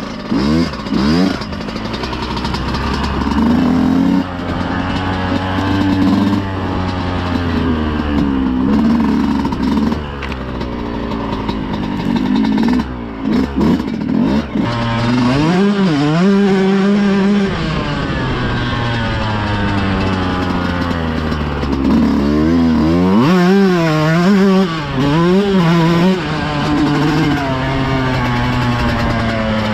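Yamaha YZ125X's single-cylinder two-stroke engine revving up and down over and over, pitch climbing and dropping as the throttle is opened and closed, with a run of quick throttle blips about two-thirds of the way through.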